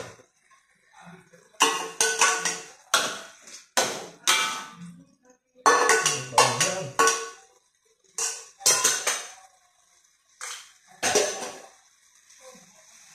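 Metal spoon and stainless steel bowls clanking in a home kitchen: a string of sharp, ringing knocks and clatters, one or two a second, with short pauses between groups.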